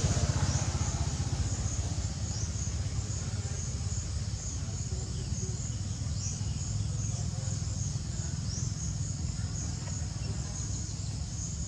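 Insects chirping at a high pitch in a steady pulse, about two pulses a second, over a low steady rumble.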